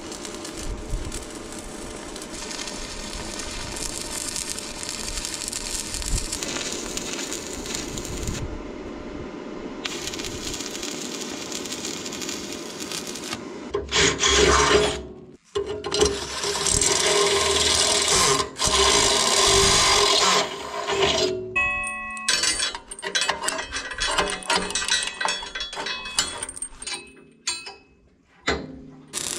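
Electric arc welding crackling and hissing steadily as a steel door handle is welded onto a cement mixer's tipping handle, then, about 14 s in, a drill boring loudly into the mixer's steel frame for several seconds. Near the end come short metallic clinks of a chain being handled against the mixer's hand wheel.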